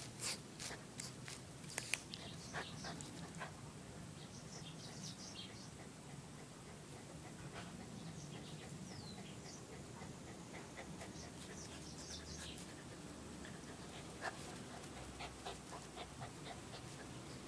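Toy poodle panting while it paws and pounces in the grass, with scattered light clicks and rustles, most of them in the first few seconds and again near the end.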